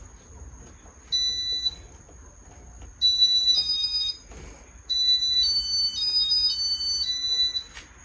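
Electronic beeping: one short beep about a second in, then two longer runs of tones stepping between several pitches like a little tune, over a faint steady high whine.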